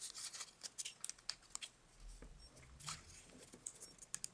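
Sheet of origami paper being creased and pressed flat by fingers: faint, irregular crinkles and sharp little clicks of the paper.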